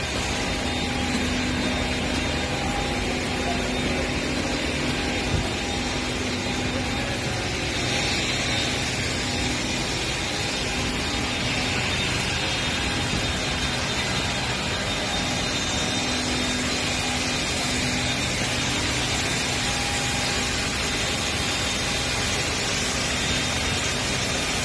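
Steady industrial roar of a petrochemical plant, with a low hum running through it and no single impacts.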